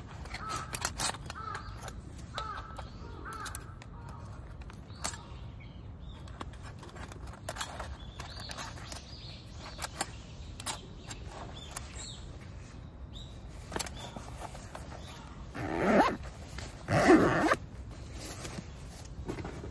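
Small gear being handled and packed into a zippered fabric organiser case: scattered light clicks and knocks of items against one another. Two louder, harsh sounds come close together near the end.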